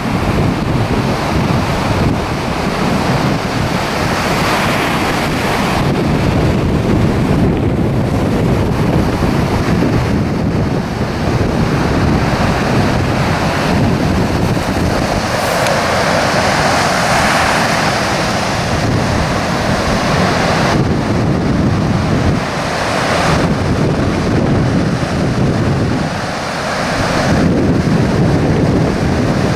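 Surf of the Sea of Okhotsk washing onto the beach in repeated swells, with wind buffeting the microphone.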